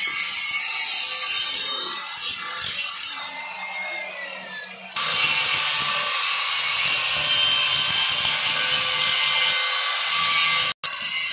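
Handheld angle grinder grinding the curved edge of a thick steel bracket plate: a steady, high-pitched hiss of the disc on metal. It goes quieter for a few seconds, comes back loud about five seconds in, and drops out for an instant near the end.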